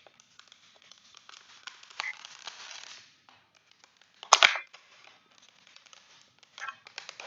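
Thin plastic water bottle crinkling and crackling as it is handled and a wooden rod is pushed through holes cut in its sides, with one loud sharp crack about four and a half seconds in.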